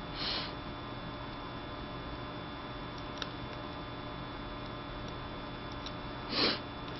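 Steady electrical hum with a few faint ticks and two short, soft swishes, one just after the start and a louder one near the end.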